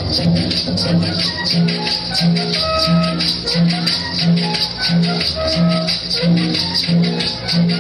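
Latin dance music with shakers and hand drums over a bass note that repeats roughly every half second.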